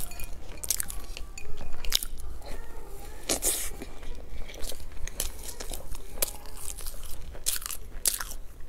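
Close-miked eating sounds of a soft bread bun dipped in milk: biting and wet chewing with many short lip smacks and mouth clicks, and the bun being pulled apart near the end.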